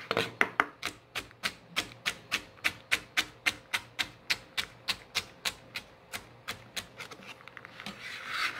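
Chef's knife chopping celery into small dice on a cutting board: a steady run of knocks at about four strokes a second, fading toward the end. Near the end comes a short scraping as the diced pieces are swept across the board by hand.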